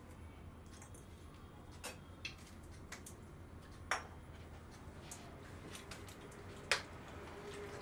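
Glass bottles and a drinking glass being handled, giving several short, sharp clinks and taps. The two loudest come about four seconds in and near seven seconds, over a low steady hum.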